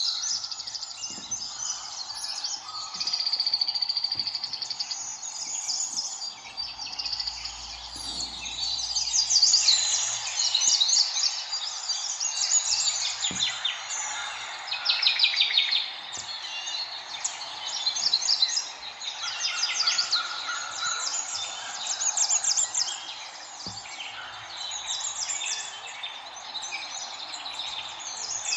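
A chorus of many small birds chirping and calling without a break, with bursts of rapid trills.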